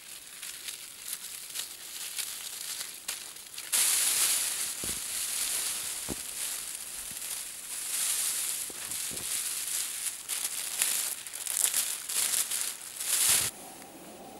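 Foil emergency space blanket crinkling and crackling as it is unfolded and shaken out. It grows louder about four seconds in and goes on in uneven bursts, easing off just before the end.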